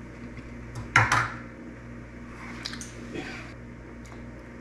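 Kitchen clatter while food is plated: one sharp knock about a second in, then a few light clicks, over a low steady hum.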